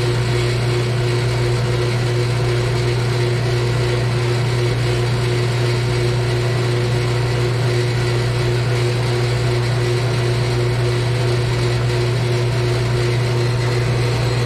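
Horizontal metal-cutting bandsaw running with a steady, unchanging hum, its blade cutting slowly through a thick 4-inch steel tube.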